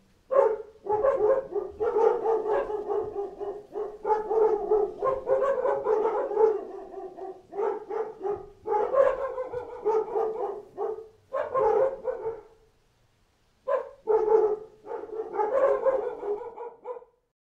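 Countdown-timer alarm of many dogs barking together in a dense, overlapping chorus. It breaks off for about a second past the two-thirds mark, then resumes and stops shortly before the end.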